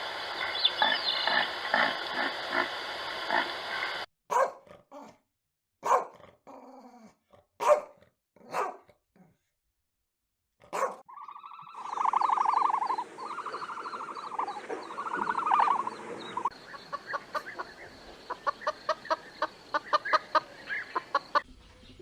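Dogs barking, yipping and whimpering in several short clips joined by abrupt cuts: sharp single barks, then high drawn-out whines, then quick repeated yips.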